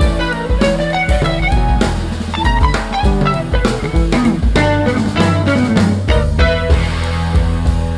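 Background music: a plucked guitar line with bass and a drum kit keeping a steady beat.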